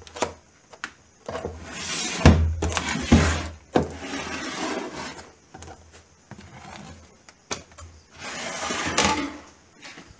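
Rubbing, scraping and a few sharp knocks as the board lid of a wooden electronics enclosure is slid off and handled, coming in several noisy bursts. A low hum sits under the loudest stretch, from about one and a half to four seconds in.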